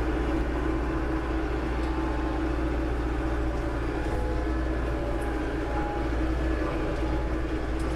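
Compact diesel tractor engine running at a steady speed while the tractor drives over soft ground.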